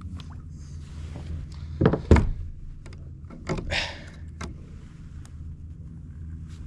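Hollow knocks and thumps on a kayak's hull, the loudest two close together about two seconds in, then another knock with a short rustle near four seconds, over a steady low hum.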